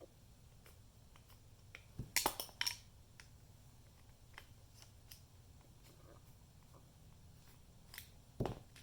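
Small metallic clicks and scrapes of a screw being turned out of a truck door latch plate. There are faint ticks throughout, a cluster of louder clicks about two seconds in, and another pair of clicks near the end.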